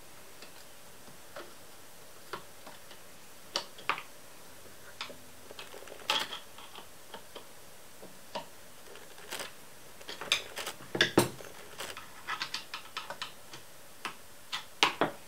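Scattered metallic clicks and taps of a screwdriver and Allen key working screws between the pulleys of an Emco Unimat SL lathe motor, as the motor is freed from its cast mounting bracket. Sparse at first, with quicker clusters of clicks in the second half.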